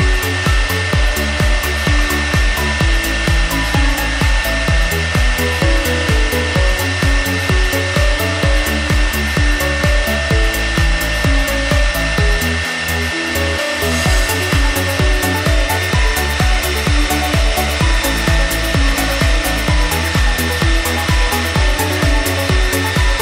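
CNC wood router spindle cutting letters into a wooden board, with a steady high whine. Background music with a steady beat plays over it and is the loudest thing.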